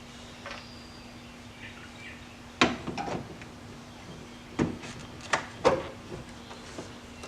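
A handful of sharp knocks and clicks, about six in three seconds, from parts and tools being handled while working on a car's steering column. A faint steady hum stops at the first knock, and birds chirp faintly behind.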